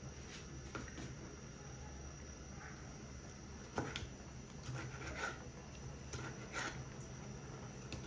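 Kitchen knife cutting up a plucked pigeon on a plastic cutting board: scattered faint knocks and scrapes of the blade, the sharpest knock just under four seconds in, over a steady low hum.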